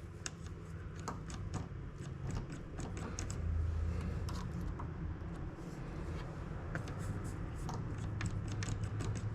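Light, irregular clicks and taps of hands handling wire connectors and test-probe leads inside a car door, over a low steady hum that grows stronger about three and a half seconds in and again near the end.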